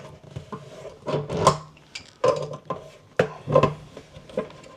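Washing machine supply hose being unscrewed from its shut-off valve: metal fittings clink and rub in a series of knocks and scrapes, loudest about a second and a half in and again past three seconds.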